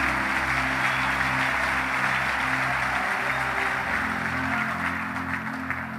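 Congregation applauding over soft background music of sustained chords; the clapping dies away near the end.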